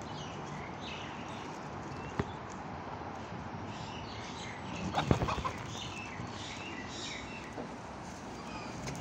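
Poultry-pen ambience: faint chirps and clucks over a steady background hiss, with one sharp click about two seconds in and a short cluster of knocks about halfway through, the loudest part.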